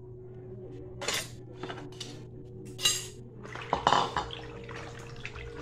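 Kitchenware being handled: a bowl and basin knocked and clinked, with sharp clatters about a second in, near three seconds and around four seconds, over a steady low hum.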